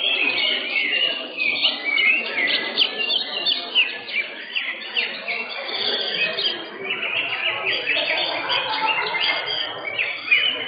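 Cucak hijau (greater green leafbird) songbirds singing without a break: a dense run of rapid, high chirps and quick pitch glides, over a low background murmur.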